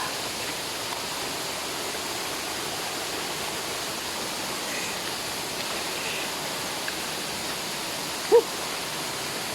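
Steady rush of a waterfall's falling water. About eight seconds in, one brief, loud, high-pitched cry cuts over it.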